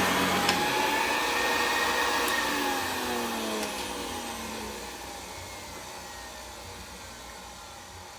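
The motor of a 1971 Hoover Convertible Model 728 upright vacuum is running when, about half a second in, a sharp click comes as its loose drive belt snaps. The low brush-roll hum stops, and the motor's whine falls in pitch and fades as the machine winds down.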